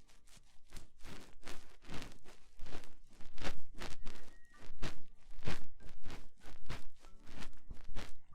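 ASMR essential-oil ear massage: oiled hands rubbing over a binaural microphone's ears in a run of irregular strokes, about two or three a second.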